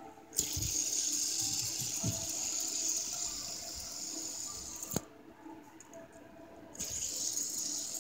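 White plastic three-armed fidget spinner flicked into a spin, its metal bearing whirring with a steady high hiss that slowly fades. About five seconds in it is stopped with a click, and it is flicked into a spin again about two seconds later.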